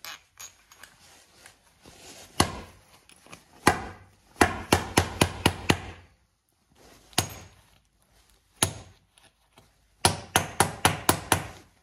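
A hammer striking a rusted bolt in a snowplow's cutting edge to knock it out: a few single sharp blows and two quick runs of about seven blows each.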